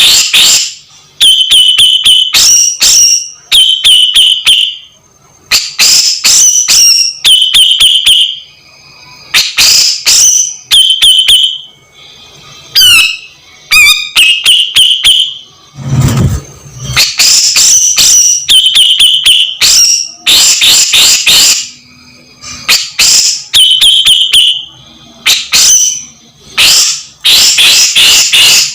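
Grey-cheeked bulbul (cucak jenggot) calling loudly and over and over: bursts of rapid sharp notes, most ending in a held whistle, every second or two. A short low rumble comes about halfway through.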